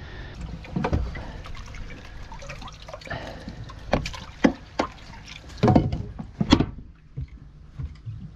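Water sloshing and dripping in a boat's livewell as a dip net scoops through it for a bait fish, a string of short splashes with the loudest about two-thirds of the way through.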